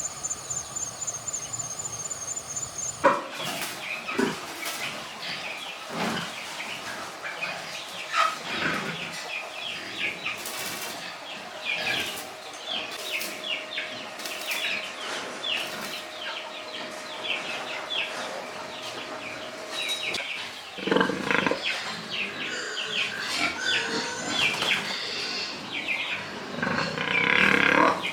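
Pigs grunting and squealing among short knocks and clatter, starting up about three seconds in after a quieter stretch with a faint high steady tone.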